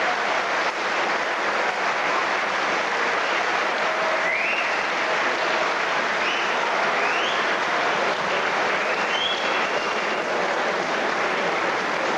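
Crowd applauding steadily at the end of a boxing bout, with a few short rising whistles over the clapping.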